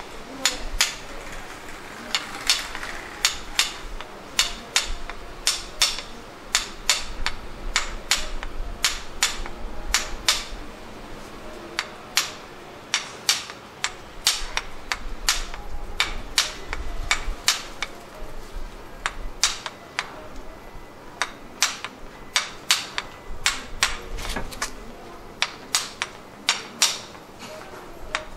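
Wooden mallet tapping a yanagiba knife's handle again and again to drive it onto the tang: sharp knocks, about two or three a second, with a few brief pauses.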